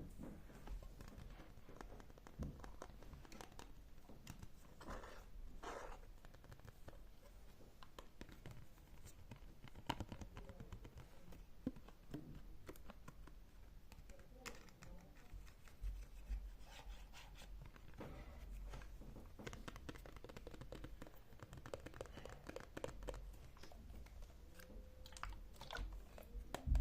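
Faint close-miked ASMR trigger sounds: scattered light taps, clicks and scratchy rustling or crinkling.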